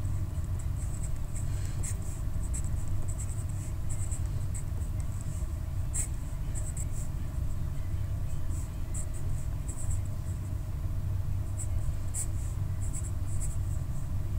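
A wooden pencil writing numbers on paper: short, irregular scratching strokes with brief pauses between them. A steady low hum runs underneath.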